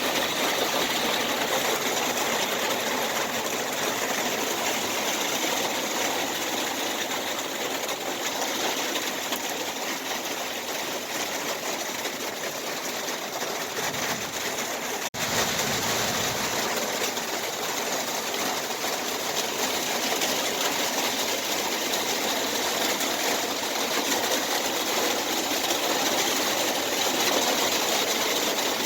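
Heavy rain pouring down in a steady, dense hiss, broken by a momentary dropout about halfway through.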